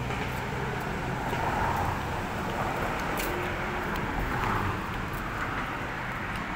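Steady road traffic noise, with vehicles passing now and then and a few faint clicks.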